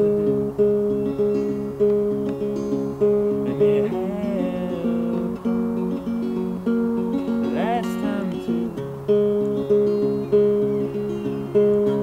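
Levin acoustic guitar played in a steady, repeating fingerpicked pattern, a note about every half second, with lower bass notes joining about nine seconds in. A short wordless vocal glide rises over it about eight seconds in.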